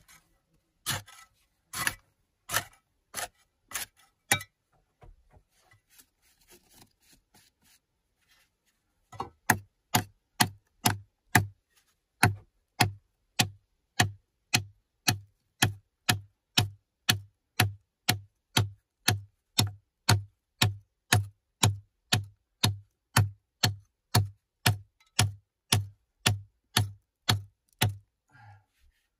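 A short-handled bladed tool chopping into a packed earth and soft-rock wall, each blow a sharp strike with a dull thud beneath it. A few slow blows are followed by a pause with faint scraping and crumbling, then a steady run of about two blows a second.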